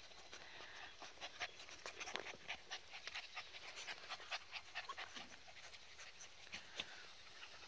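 Faint, quick panting of Border Collie puppies, with short soft rustles several times a second.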